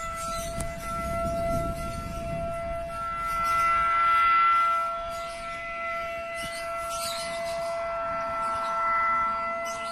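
Civil defence siren sounding one long steady tone, swelling louder about four seconds in and again near the end. It is the siren sounded simultaneously across Indonesia to mark the 75th Independence Day.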